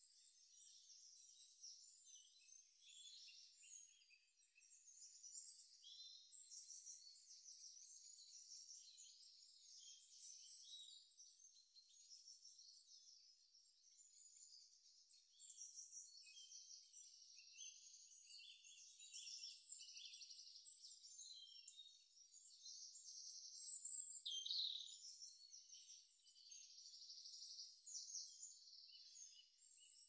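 Near silence with faint, high-pitched chirping throughout, and one louder chirp about 24 seconds in.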